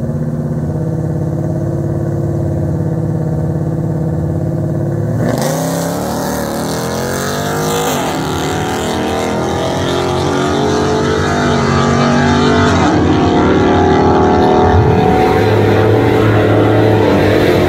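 Naturally aspirated RAM pickup engine held at steady high revs on the start line, then launching about five seconds in and revving up hard down the drag strip, its pitch climbing and dropping back at each gear change.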